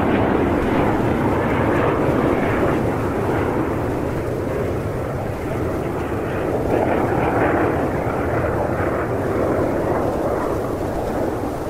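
Jet engines of an Airbus A380 running, a steady, dense roar that eases slightly toward the end.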